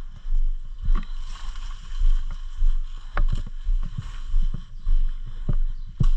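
Low rumbling with irregular thumps and knocks about every half second, the sound of movement and handling on a body-worn camera's microphone.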